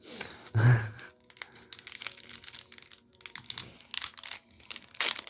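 Irregular crinkling and rustling of a foil booster-pack wrapper and trading cards being handled.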